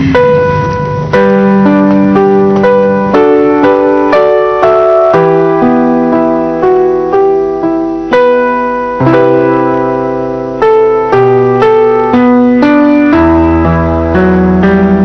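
Slow solo piano music: single notes and chords struck about once or twice a second, each fading away, over shifting bass notes.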